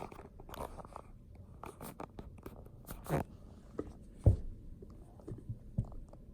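Handling noises of vinyl reborn doll kit heads being moved about on a table: scattered soft taps, rustles and scrapes, with one louder thump about four seconds in.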